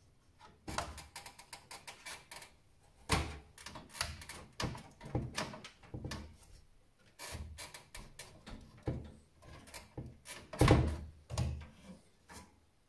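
Hands working inside a desktop PC case: an irregular run of knocks, clicks and clatters as parts are handled, with the loudest thump a little before the end.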